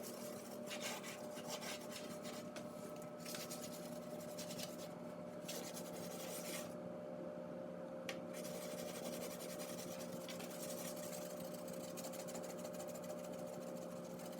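Wet dishwasher tablet scrubbed back and forth on oven door glass: a soft, irregular rasping of repeated strokes that pause briefly about halfway through. A steady low electrical hum runs underneath.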